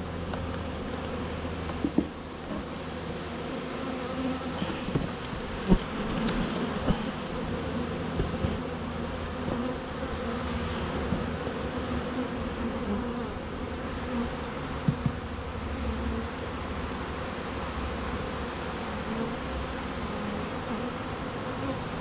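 A colony of honeybees buzzing over the open frames of a hive box: a steady, dense hum of many bees, with a few brief taps, the loudest about six seconds in.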